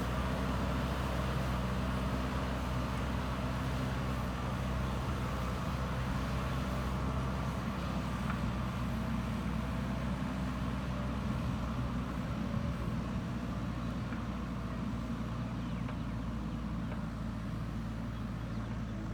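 JCB 3DX Super backhoe loader's diesel engine running steadily under work, a constant low drone.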